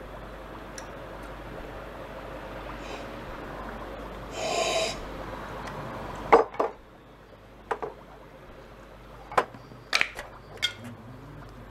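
Metal food cans knocking and clinking against each other as they are handled, a few separate sharp clicks spread over several seconds, the loudest a quick double knock. Before them, a short breathy sound from the man, over a steady background hiss.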